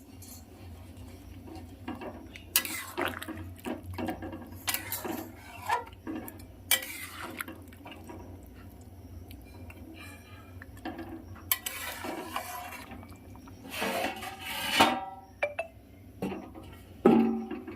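A cooking utensil stirring a thick chicken curry in a metal pan, with irregular scrapes and clinks against the pan, and a louder ringing clank near the end.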